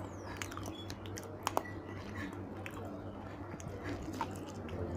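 A person chewing and biting food, eaten by hand, with scattered soft clicks and smacks; near the end he bites into a piece of fried chicken. A low steady hum runs underneath.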